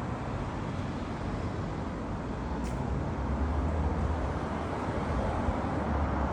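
Steady low vehicle rumble that grows slightly louder, with a single faint click about two and a half seconds in.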